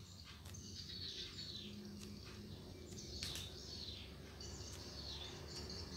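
Faint background noise with a few short, high, falling chirps and a faint click about three seconds in.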